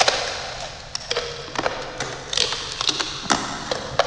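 A rapid, irregular run of sharp clicks and taps, about a dozen, some followed by a brief low hum.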